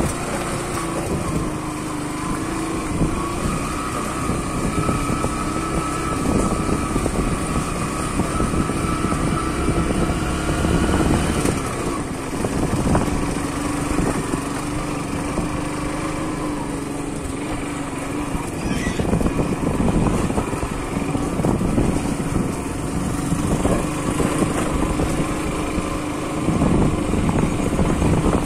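Motorcycle engine running steadily while riding, with occasional knocks and rattles from the rough gravel road surface.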